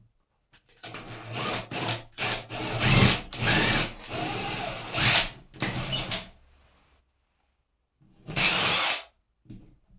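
Milwaukee FUEL cordless drill with a 5/16-inch twist bit boring holes through drywall for sheetrock anchors. It runs in a string of short trigger pulls for about five seconds, then once more briefly near the end.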